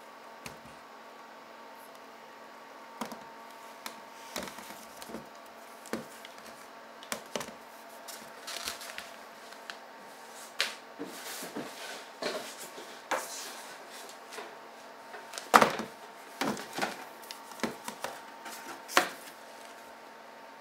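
Handling noise: irregular knocks, clicks and rustles of objects being moved, the loudest knock about fifteen seconds in, over a faint steady hum.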